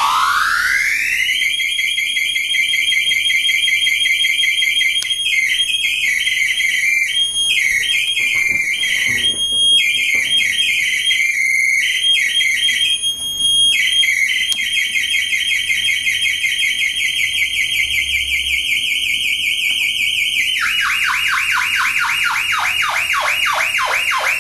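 Homemade Nibbler electronic noise synthesizer, its knobs being turned, making a high, alarm-like warbling tone. The pitch sweeps quickly upward at the start, then holds high with a rapid warble that stutters and chops in the middle. Near the end it changes to a train of quick falling chirps that sink lower.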